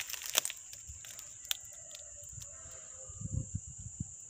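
Insects chirring steadily at a high pitch, with a few sharp clicks and soft footsteps on dry ground about three seconds in.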